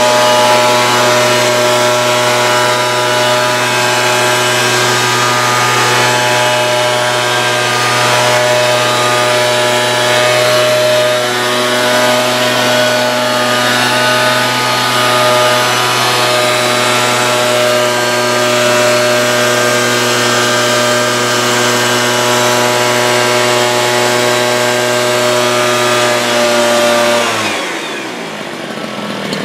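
Motorised powder blower dusting disinfectant powder, running steadily at one pitch; about 27 seconds in it is switched off and its pitch falls as it winds down.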